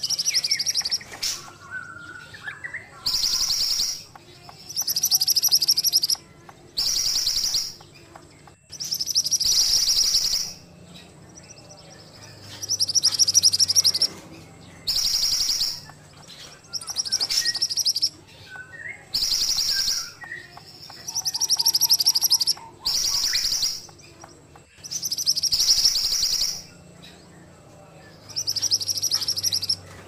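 Minivet (burung mantenan) singing: loud, high, fast-trilled phrases about a second long, repeated about a dozen times at roughly two-second intervals, with faint lower chirps in the gaps.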